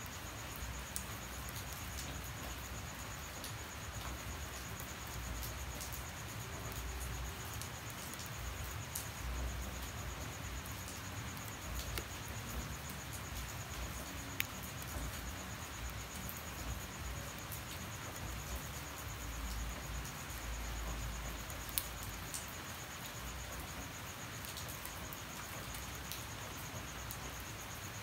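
Light rain falling at night with a steady high-pitched insect trill over it, and a few sharp drip ticks now and then.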